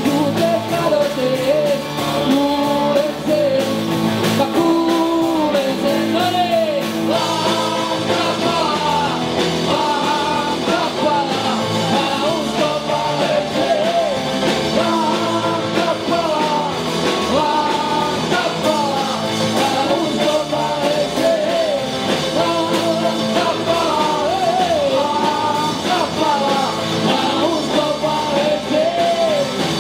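Live rock band playing a song with sung lead vocals over electric guitars and drums.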